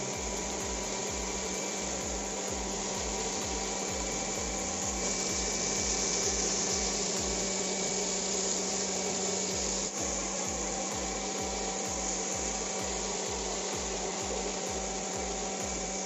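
Homemade bottle vacuum cleaner's 775 DC motor running steadily, a motor whine over rushing air as it sucks up loose grain.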